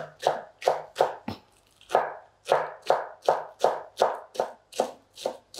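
Chef's knife chopping green onions on a wooden cutting board: steady, sharp knocks of the blade on the board, about three a second, with a brief pause about one and a half seconds in.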